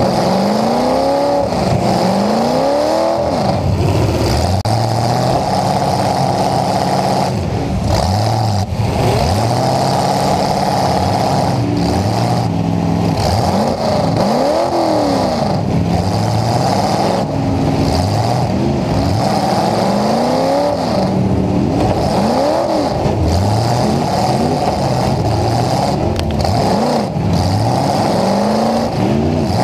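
Demolition derby pickup's engine, piped straight up through the hood, revving up and dropping back over and over as the truck lunges back and forth. A few bangs of impacts are heard along the way.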